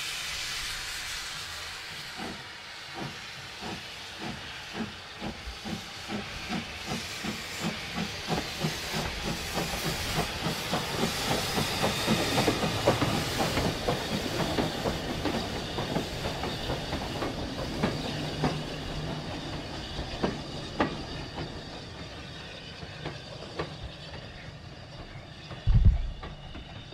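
LNER Class J72 0-6-0 tank engine pulling away: a hiss of steam from the open cylinder drain cocks, then a steady chuffing exhaust beat at about two to three beats a second that grows louder as it passes close and fades as it draws off. A brief low thump near the end.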